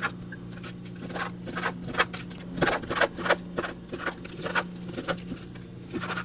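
Chef's knife chopping raw chicken breast on a cutting board: irregular taps and knocks of the blade against the board, about two a second, over a low steady hum.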